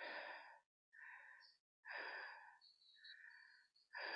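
A woman's heavy breathing: about five quiet, deep breaths in and out in quick succession, each ending abruptly.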